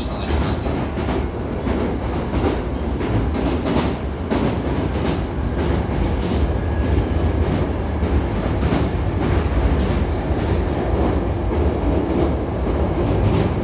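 Hankyu Kyoto Line electric commuter train running at speed, heard from inside the car by the doors: a steady low rumble with quick clicks and clatter from the wheels on the rails, while the train crosses a river bridge.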